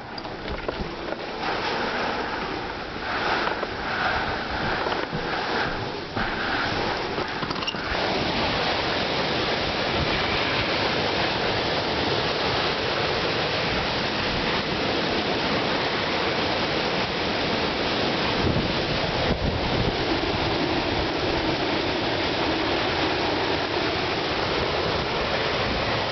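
Strong storm wind blowing hard across the microphone, gusting unevenly for the first several seconds, then holding at a steady, continuous rush.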